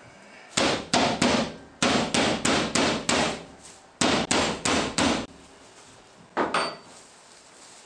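Metal meat mallet pounding a pork cutlet through plastic foil on a plastic cutting board, flattening and tenderizing it for schnitzel. About fifteen sharp blows come in quick runs, roughly three a second, with short pauses between and a last pair near the end.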